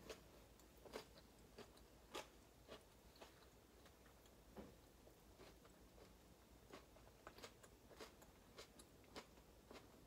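Faint chewing of a mouthful of cauliflower-crust pizza: soft, irregular mouth clicks and small crunches, a couple of times a second.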